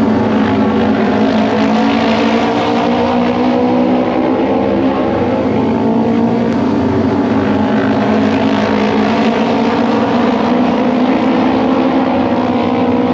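A pack of Japanese auto race motorcycles with 600 cc twin-cylinder engines racing around the oval at full throttle. Several engines overlap, their pitches rising and falling as the bikes sweep past.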